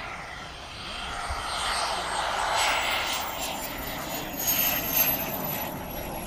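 Radio-controlled model jet on its landing approach, a thin high engine whine falling slowly in pitch over a steady rushing noise as it comes down to the runway.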